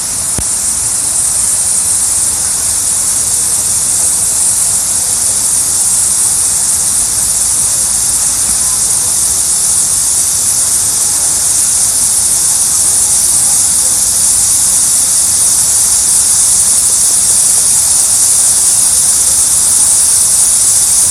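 Water fountain splashing steadily: an even, hissing rush of falling water with no breaks.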